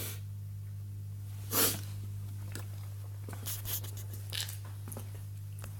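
Omega dishwasher running dry with no water connected, its pump motor giving a steady low hum. A sharp sniff cuts in about a second and a half in, and a fainter one comes later.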